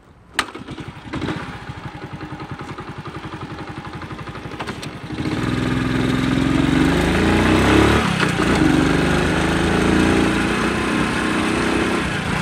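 Step-through moped's small engine catching with a click, idling with a fast, even putter, then getting louder about five seconds in as the bike pulls away, its pitch rising and dipping through the gears.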